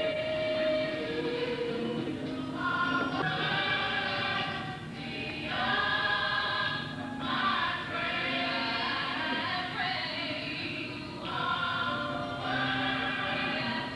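Background music: a choir singing long held notes in phrase after phrase, with short breaks between phrases.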